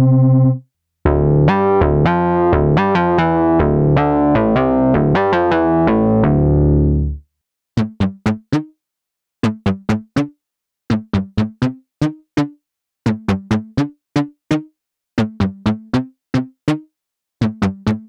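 Newfangled Audio Pendulate, a Buchla-inspired software synthesizer with a double-pendulum chaos oscillator, playing two demo patches. First an organ-style patch holds sustained notes that change quickly in a run, until about seven seconds in. After a short gap comes a plucked patch, with quick groups of three or four short notes each followed by a brief silence.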